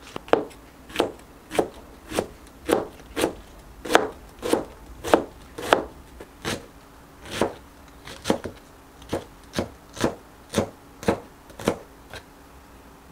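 Knife shredding cabbage on a plastic cutting board: a steady series of sharp chops, roughly two a second, each blade stroke slicing through the leaves and tapping the board.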